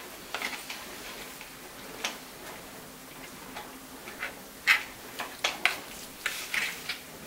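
A fork clicking and scraping against a bowl in irregular light taps while stirring crumbled cake into thick chocolate pudding. The taps come more often in the second half.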